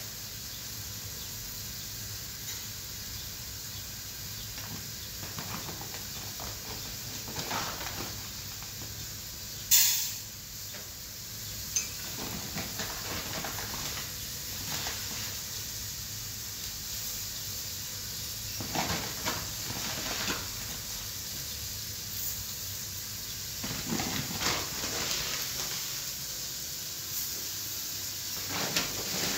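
Dry rice being scooped out of a woven plastic sack into a metal pan, heard as a few short rustling spells over a steady hiss, with one sharp click about ten seconds in.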